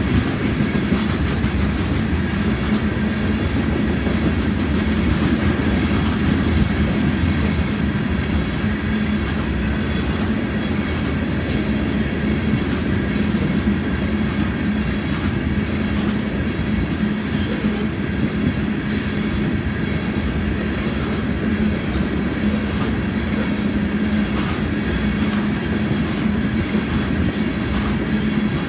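Loaded gravel hopper cars of a Union Pacific freight train rolling past at steady speed: a continuous loud rumble of steel wheels on the rails, with faint high steady tones and scattered light clanks over it.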